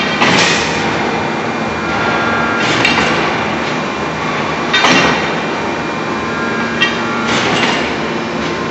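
Heavy industrial forging machine working a red-hot billet: four heavy strokes about two to two and a half seconds apart, each a sharp hit followed by a short loud rush, over a steady machinery hum.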